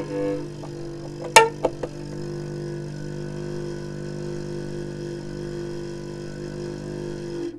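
Hurdy-gurdy drone strings holding a steady low chord after the melody stops, with a sharp buzz from the trompette's buzzing bridge about a second and a half in and two smaller ones just after. The drones stop near the end.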